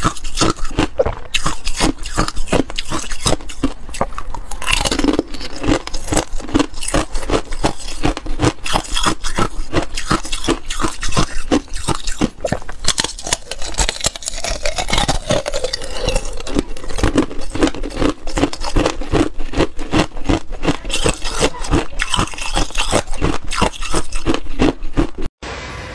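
Thin, hollow sheets of clear ice from an ice-cube tray crackling and crunching as they are handled and pressed, a dense, continuous run of sharp cracks. It breaks off suddenly just before the end.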